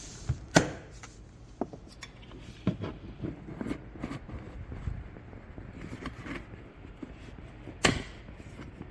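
Plastic interior trim clips being pried out with a pick: a series of scattered clicks and snaps, the loudest about half a second in and another near the end, with light rustling of carpet between them.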